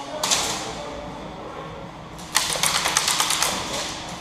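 Airsoft rifle firing a rapid full-auto burst of sharp clicks, about a dozen a second, for about a second starting a little over two seconds in. A brief burst of noise comes just before, near the start.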